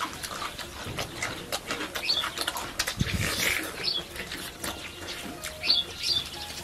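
Close, wet mouth noises of people eating oxtail by hand: irregular chewing, lip smacking and sucking meat off the bone. Short bird chirps sound a few times in the background.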